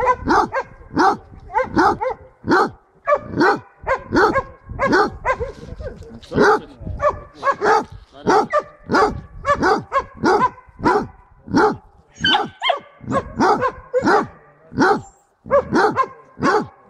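Basset hound barking over and over at a rapid, even pace of about two to three barks a second, with a brief pause near the end. It is a bay-at-the-kill dog giving tongue at a found wild boar to call the hunter.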